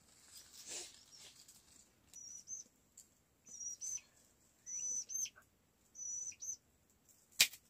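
A bird repeating a short, high call four times, about every second and a quarter: a level note that ends in a quick upward flick. Near the end comes a single sharp crack, the loudest sound.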